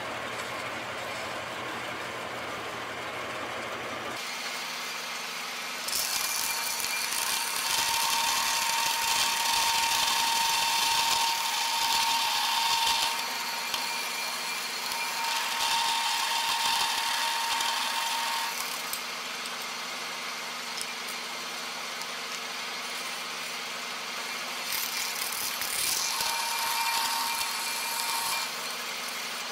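Metal-cutting bandsaw running in low speed with a fine-tooth blade, cutting 1/8-inch 316 stainless steel plate. Over the steady hum of the machine, each cut brings a loud hiss of the teeth with a thin steady tone. This happens three times: about six seconds in for several seconds, again midway, and once more near the end.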